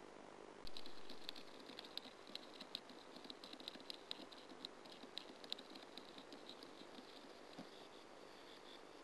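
Sand martin in its nest tunnel making a rapid, irregular run of short, scratchy ticks that starts suddenly under a second in and thins out over the last few seconds.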